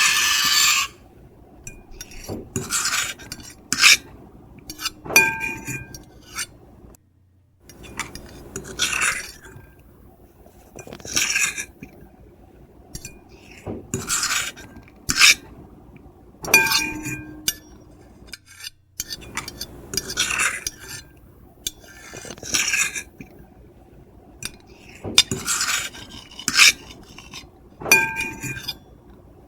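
Metal fork and knife scraping across a plate in short, repeated strokes, a second or two apart. A louder, longer scrape ends about a second in, and a few of the strokes squeal with a high pitch.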